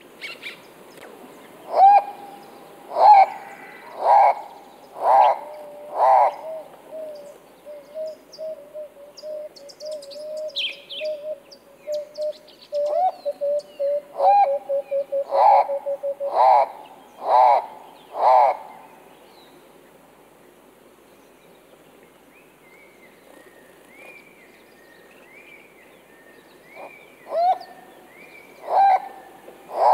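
Birds calling: loud pitched calls in evenly spaced runs of about one a second, with a long wavering trill between the runs and higher chirping notes late on.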